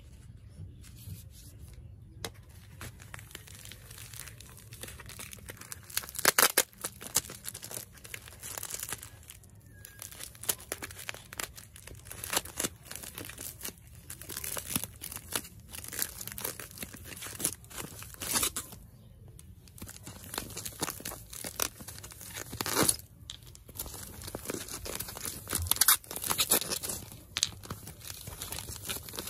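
Plastic packaging and white foam wrap crinkling and tearing as hands unwrap a parcel item, in irregular crackles with a few louder sharp snaps.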